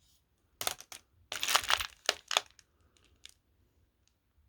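Glass marbles clicking and rattling against each other as they are handled and sorted, in two short clusters of clacks, then a few single ticks.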